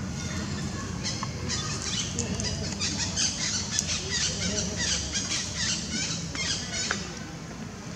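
A rapid run of short, high-pitched chirping and squeaking calls from about a second in until near the end, over a steady low rumble.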